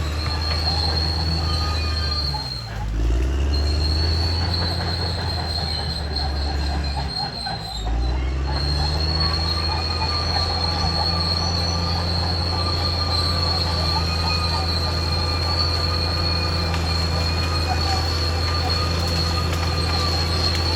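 Caterpillar D6R XL crawler bulldozer's diesel engine running steadily, with a continuous high-pitched squeal from its steel track undercarriage. The engine pitch dips briefly and recovers twice, about two and a half and seven and a half seconds in.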